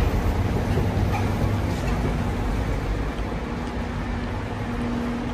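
Metro station escalator machinery running with a steady low hum, easing off slightly toward the end.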